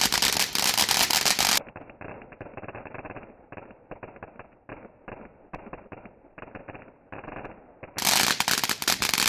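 Fireworks crackling in rapid, dense pops, loud for about the first second and a half and again near the end. In between, the crackling carries on quieter and muffled.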